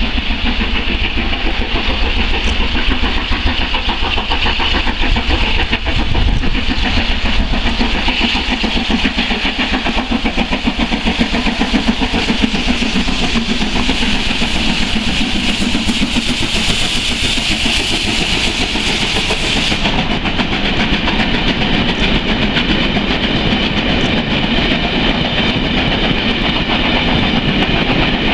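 LMS Stanier Class 5 steam locomotive 45231 running along the main line with its train, approaching and passing close about halfway through. Its coaches then roll by with wheel clatter on the rails.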